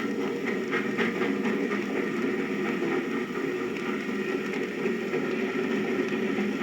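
Sound-effect recording of a passenger train running along the track: a steady rumble with a few light clicks in the first second or so, heard through the surface noise of an old 78 rpm record.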